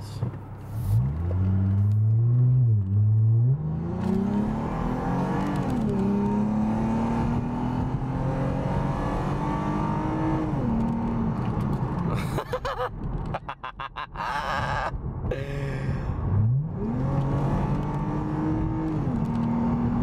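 Lexus car's engine, heard from inside the cabin, accelerating in several pulls: its pitch climbs and drops back about three seconds in and again near ten seconds, eases off for a few seconds, then climbs again from about three-quarters of the way through. It is being driven with a newly fitted throttle controller set to its most aggressive setting, to test the sharper throttle response.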